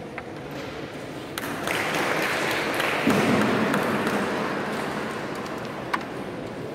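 A carrom striker is flicked across the board and strikes the carrom men with a single sharp click near the end. Before it there is a swell of diffuse background hall noise.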